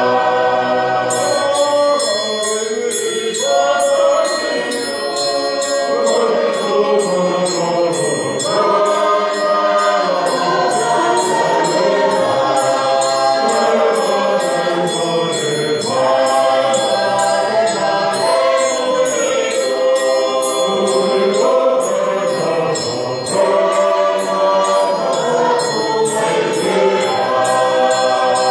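A choir singing a polotu, a hymn sung in several-part harmony; the singing is continuous and full-voiced.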